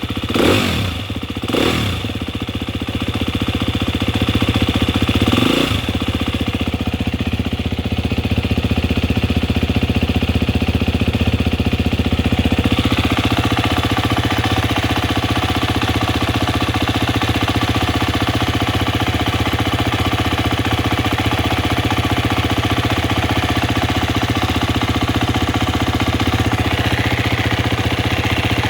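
2018 Husqvarna FE 250 four-stroke single-cylinder engine blipped briefly a few times in the first six seconds, then idling steadily. It has an abnormal mechanical noise that the owner puts down, probably, to the timing (valve train).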